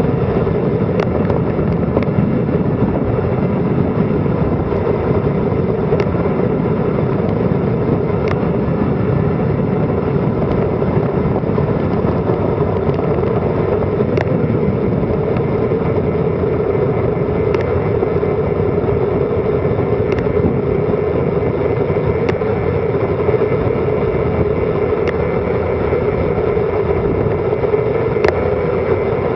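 Wind rushing over a Garmin Virb Elite action camera's microphone during a fast bicycle descent, a steady loud rush with a few light ticks scattered through it.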